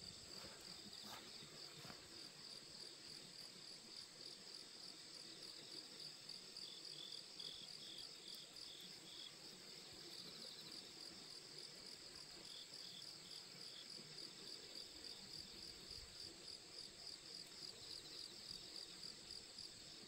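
Faint, steady chorus of grass insects such as crickets: a continuous high, rapidly pulsing trill. A short run of lower chirps comes in twice, about seven and thirteen seconds in.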